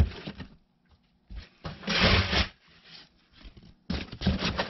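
Corrugated cardboard sheets rubbing and scraping against each other and the bin as torn strips are laid down and pressed flat. The sound comes in several separate bursts, the loudest about two seconds in.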